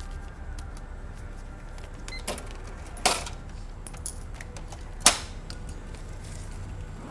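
Shop cash register being worked, its cash drawer open: a run of clicks and sharp clacks, the loudest about three and five seconds in, over a steady low hum.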